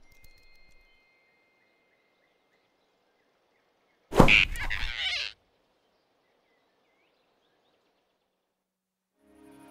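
Cartoon sound effect of a sudden loud whoosh and grab about four seconds in, lasting about a second, as the giant rabbit snatches the flying squirrel off the branch; the rest is very quiet.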